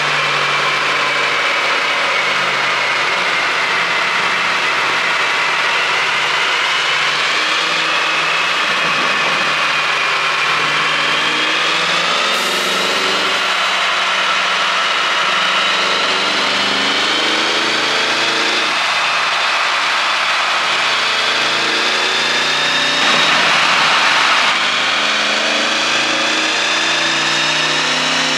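Porsche Panamera Turbo S E-Hybrid's twin-turbo V8 running steadily at idle, its pitch drifting slowly up and down. It gets briefly louder about 23 seconds in.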